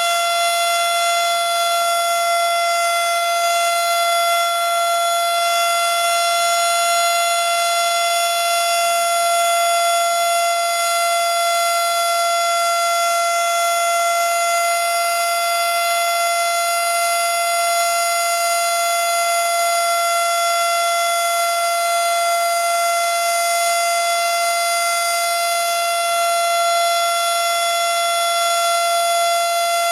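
Federal Signal Model 7 electromechanical tornado siren sounding during its monthly test, holding one loud, steady tone at full pitch with no rise or fall.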